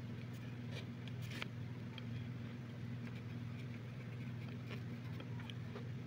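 A steady low hum, with faint, scattered scratches and ticks of a pencil or eraser working on paper.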